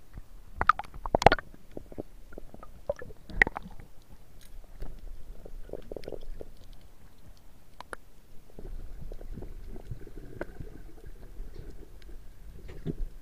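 Muffled underwater sound through a camera's waterproof housing during a dive: sharp knocks about a second in and again at about three and a half seconds among small clicks and gurgles, then a steady low rumble.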